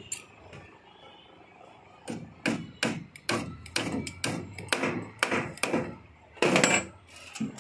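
Hammer blows on the wooden formwork boards around a concrete lintel: a run of about a dozen sharp knocks from about two seconds in, roughly three a second, then a louder, longer clatter near the end and one last knock.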